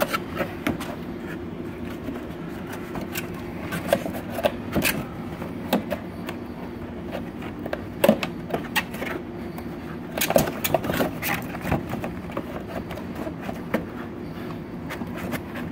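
Stiff printed cardboard being handled and folded, its tabs worked into slots: irregular scrapes, creaks and sharp taps, over a steady low hum.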